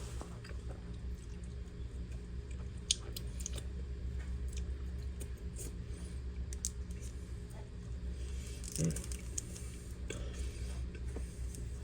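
A person chewing a bite of soft no-bake lemon cookie: faint mouth sounds and small clicks over a steady low hum.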